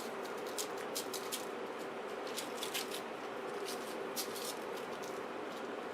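Hands working raw chicken wings in dry rub: soft, irregular crinkles and squishy ticks over a steady low hum.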